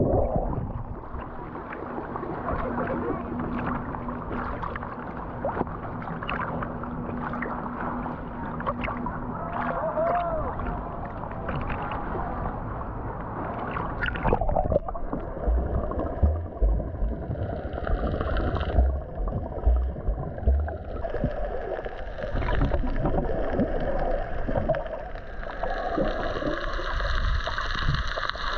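Muffled rushing and bubbling water heard through a GoPro's microphone underwater while snorkelling, with a steady low engine hum from a boat carried through the water for the first ten seconds or so. Irregular low thumps of water against the camera follow in the second half.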